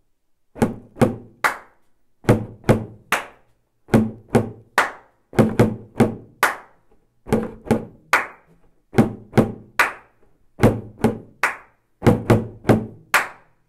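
Homemade bass drum made from a plastic jug with a little water in it, struck by a spoon worked by a flip-flop foot pedal. It is played in a rhythm of quick groups of three or four knocks, each ringing briefly.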